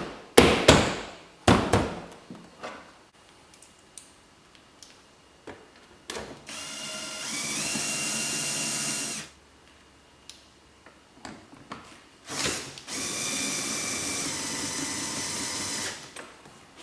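A few sharp taps on a car door trim panel in the first two seconds. Then a cordless power drill/driver runs twice, about three seconds each time; the motor whines up at the start and then runs steadily.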